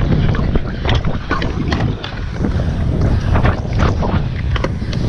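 Wind buffeting the microphone over the rumble of stunt-scooter wheels rolling on concrete, with scattered clicks and knocks from the ride.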